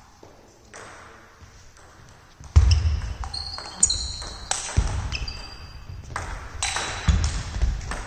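Table tennis rally in a sports hall: the ball clicks off bats and table, rubber-soled shoes squeak on the hall floor, and footwork thuds. It starts about two and a half seconds in, after a quieter lead-in.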